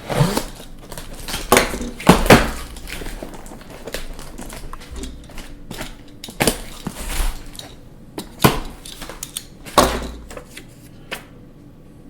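A cardboard box being opened and its packaging handled: irregular rustling, scraping and knocks, loudest about two seconds in.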